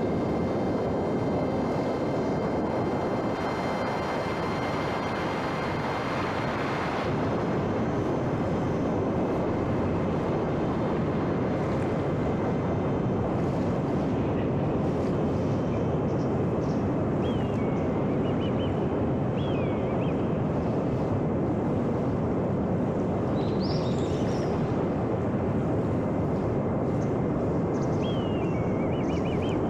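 Steady rush of wind around a small homemade electric RC airplane in flight. The thin whine of its brushless motor and propeller is heard for the first several seconds and stops about seven seconds in, with power cut for gliding. A few short high chirps come later.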